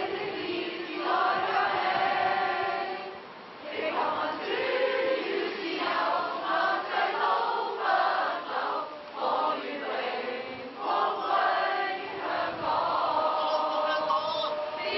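A crowd of men and women singing a song together in long held phrases, with a short break about three and a half seconds in.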